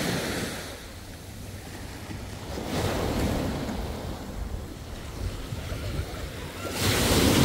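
Small waves washing onto a saltwater shore, swelling about three times. Wind rumbles on the microphone throughout.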